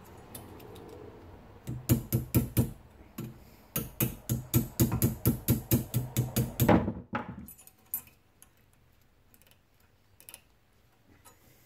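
Rapid metallic clicking and clinking from steel parts being worked on a brake caliper bracket clamped in a bench vise: a short burst about two seconds in, then a longer, denser run of clicks until about seven seconds in. After that only faint, scattered ticks as a stainless steel pad clip is pressed onto the bracket by hand.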